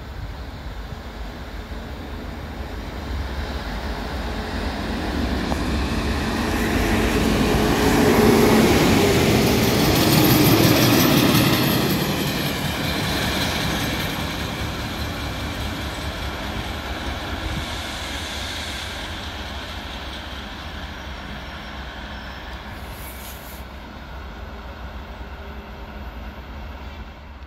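Railway work train of yellow track maintenance machines, wagons and a red locomotive running through the station. Its running noise swells to its loudest about eight to twelve seconds in as it passes close, then slowly fades as it runs off.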